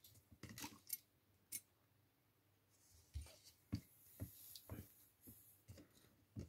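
Faint, scattered clicks and light taps of small tools and parts being handled at a soldering bench, about a dozen in all, with a soft hiss for a couple of seconds in the middle.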